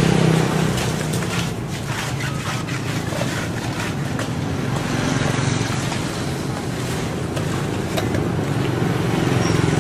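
Steady engine hum under a constant rushing noise, with one sharp click about eight seconds in.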